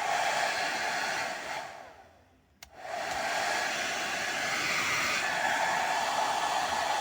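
BRAOUA hair dryer running with a steady whoosh, switched off about a second and a half in and winding down, then a click and it starts running again. It is working normally now that its broken power-cord wire has been replaced.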